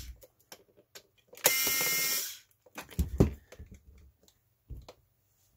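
Small electric screwdriver motor whirring for just under a second as it backs a screw out of a plastic camera handle. A few soft knocks and clicks follow as the camera is handled and set down.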